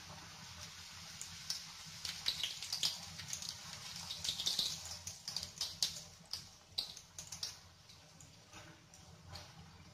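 Bhatura deep-frying in hot oil in a kadai: the oil sizzles with dense crackling and popping, busiest in the middle while the bread is worked with a slotted spoon, then settling to a softer sizzle near the end.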